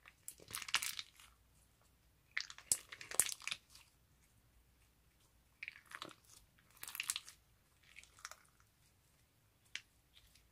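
Clear crunchy slime packed with hard plastic bead balls, squeezed and kneaded by hand. It crackles and clicks in about six separate squeezes with short pauses between, as the beads rub and roll against each other inside the slime.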